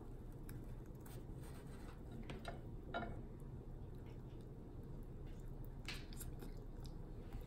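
Eating sounds from someone biting and chewing saucy hot chicken wings by hand: a few scattered wet smacks and chews over a steady low hum.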